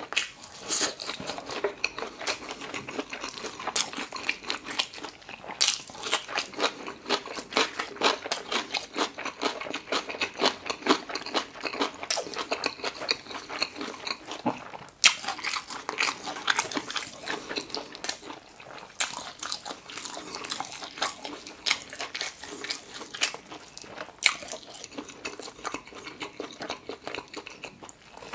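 Close-miked chewing and lip-smacking of braised pig's trotter (jokbal) meat and fatty skin: a dense, irregular run of smacks and clicks.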